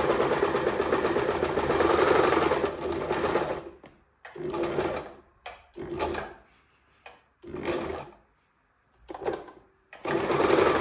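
Pfaff hobby 4260 household sewing machine stitching a cloth test sample after servicing. It sews in one steady run of about four seconds, then stops and starts in five short bursts of under a second each.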